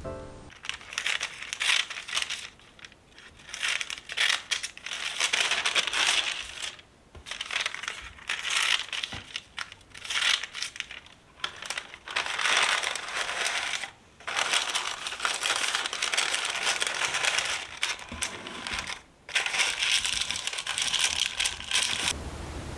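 Baking paper crinkling in repeated bursts as it is creased and pressed into a loaf pan to line it, with short pauses between handlings.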